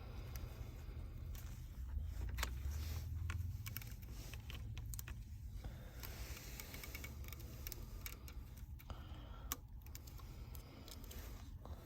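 Scattered light clicks and taps from handling a smartphone's back glass and small parts by hand, over a steady low hum.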